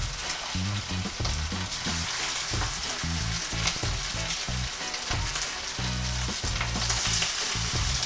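Flour-coated barracuda pieces sizzling and crackling in hot oil in a nonstick frying pan as more pieces are spooned in. The sizzle grows louder near the end.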